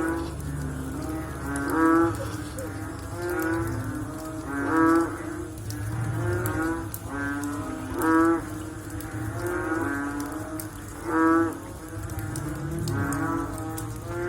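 Several frogs calling after rain: repeated pitched croaks, a loud one about every three seconds with fainter calls from other frogs overlapping in between.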